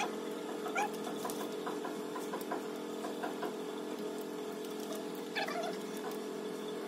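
German Shepherd puppy whimpering in a few short, high, rising squeaks while being towel-dried after a bath, over a steady low hum.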